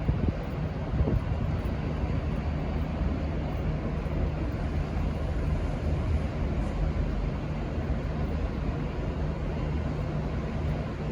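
V/Line N class diesel locomotive engine running steadily, a low even drone that holds unchanged throughout.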